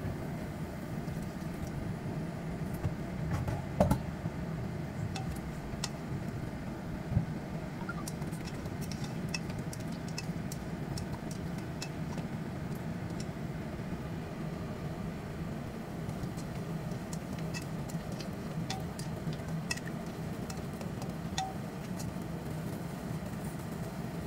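Pork ribs simmering in a wok of sauce, with scattered small pops and bubbling over a steady low hum. A couple of louder knocks in the first third come from the spatula against the pan.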